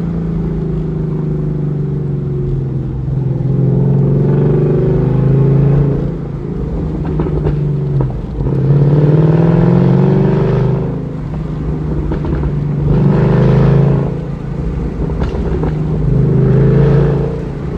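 2014 Mustang GT's 5.0 V8 through a Borla ATAK cat-back exhaust with an off-road H-pipe, revving up and falling back about four times, with a few sharp crackles as the revs drop.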